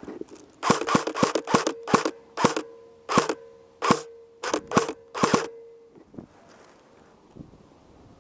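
Airsoft guns firing about a dozen single shots in quick, uneven succession, each a sharp crack, starting about a second in and stopping after about five seconds.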